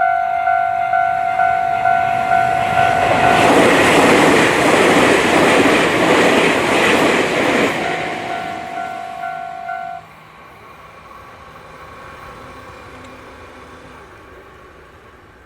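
Japanese railway level-crossing warning bell ringing in rapid, even dings, drowned out for about four seconds by the loud rush of a train going over the crossing. The bell is heard again, then cuts off suddenly about ten seconds in, and the train's fainter rumble fades away.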